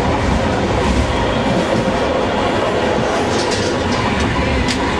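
Flåm Railway train running along the track, a steady rumble of wheels on rails, with a few sharp clicks about three to four seconds in.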